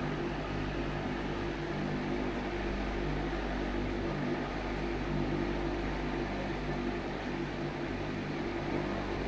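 Electric fan running: a steady low hum with an even hiss over it.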